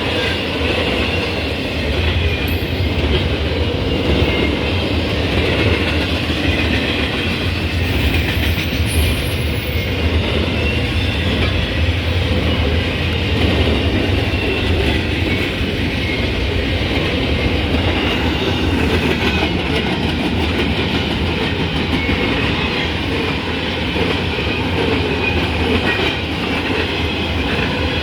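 Train running along the rails, a steady rumble with the clatter of wheels over the track.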